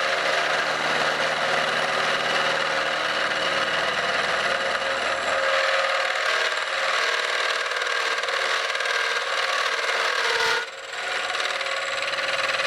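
A metalworking machine tool running steadily while cutting steel, a dense grinding-cutting noise with fixed tones held through. The sound drops out briefly about ten and a half seconds in, then goes on.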